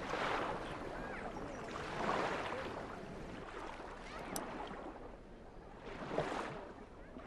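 Water sloshing in three swells that rise and fade, a few seconds apart.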